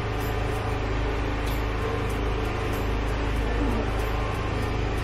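Steady low mechanical hum, even in level throughout, with faint regular high ticks.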